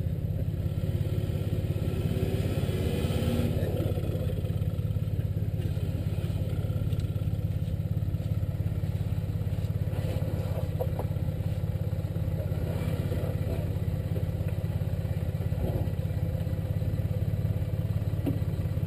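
A four-wheel-drive vehicle's engine running steadily at low revs as it creeps down the riverbank, with a faint rattle.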